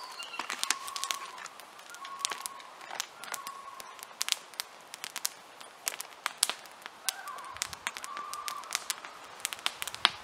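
Wood campfire crackling, with frequent irregular sharp pops and snaps. Short steady whistling tones come and go several times.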